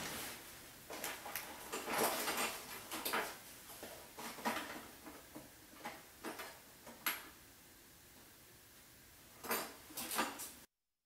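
Irregular clicks and short scrapes of a pick-and-hook tool working the old rubber grommet seal out of a dishwasher's plastic sump housing. The sound stops abruptly near the end.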